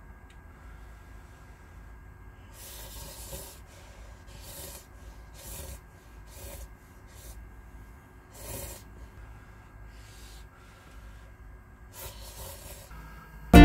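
A series of short, soft hissing rustles, roughly one a second, over a low steady background; acoustic guitar music starts abruptly at the very end.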